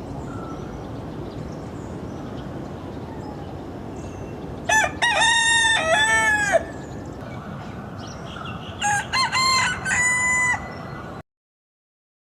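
Rooster crowing twice, two long cock-a-doodle-doo calls a few seconds apart over steady background noise.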